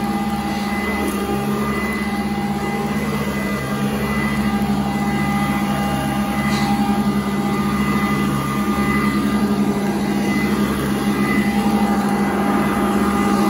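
Sanitaire upright vacuum cleaner running with a steady motor hum as it is pushed back and forth over carpet.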